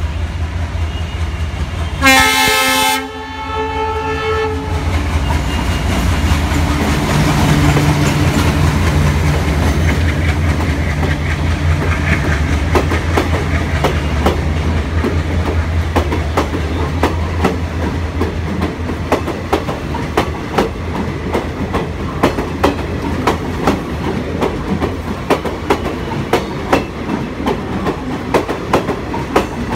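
Indian Railways diesel locomotive passing, its engine drone low and steady, with one horn blast of about a second some two seconds in. Then a rake of ICF passenger coaches rolls by, its wheels clicking rhythmically over the rail joints.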